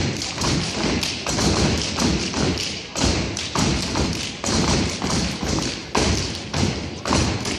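A step team stomping and clapping in unison on a portable raised stage: a quick, syncopated run of loud thuds, several a second.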